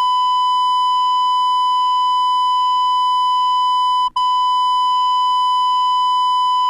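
Censor bleep: a steady, single-pitched beep held for several seconds, with a momentary break about four seconds in.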